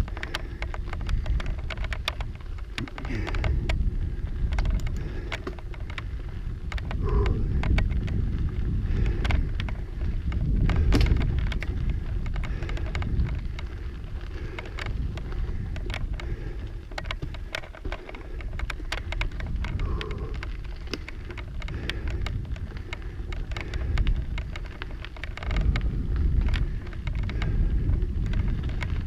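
Mountain bike riding over a rough, rocky trail: the tyres crunch over rocks and gravel and the bike rattles, giving many sharp clicks and knocks. Under it is a heavy low rumble of wind on the microphone that swells and fades.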